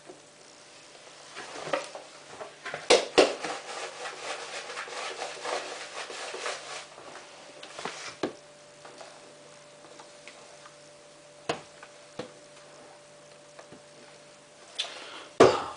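Handling of laundry detergent containers at a washing machine: rustling with knocks and sharp clacks. The loudest clacks come about three seconds in and near the end, over a faint steady hum.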